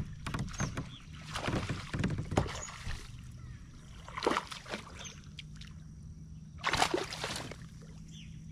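A hooked bass splashing and thrashing at the surface beside a kayak as it is played on the rod, in three separate bursts of splashing.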